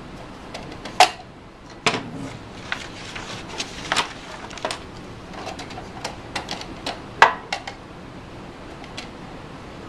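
A popsicle-stick truss bridge being handled and set into a metal load-testing rig: irregular light clicks and taps of wood against wood and metal, with two louder knocks, about a second in and about seven seconds in.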